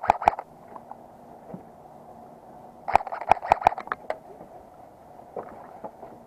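Airsoft guns firing quick strings of shots: a couple right at the start, a rapid run of about seven shots about three seconds in, and a few fainter shots near the end.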